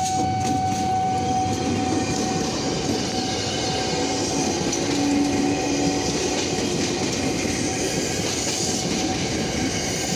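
Tokyo Metro 6000 series electric commuter train passing at close range: a steady rumble of wheels on rail with clattering over the joints. A steady high tone sounds over it and fades out about six seconds in.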